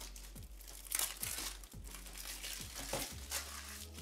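Packaging of a box of tattoo needle cartridges being handled and opened: crinkling and rustling in a few short bursts, the loudest about a second in and again near the end.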